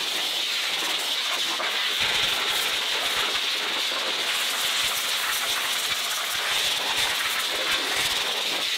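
Gravitis heated car-drying blower running, a steady hiss of air blowing water out of a freshly rinsed engine bay.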